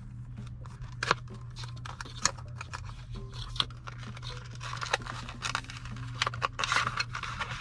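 Small cardboard product box being opened by hand. A few sharp clicks and taps come first, then scraping and rustling of the packaging as the contents are taken out, over a steady low hum.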